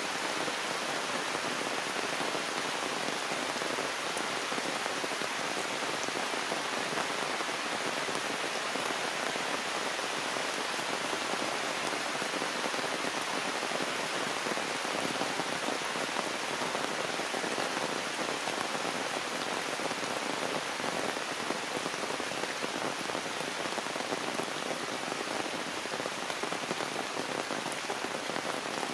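Heavy rain falling steadily, a dense, even hiss that holds at one level throughout.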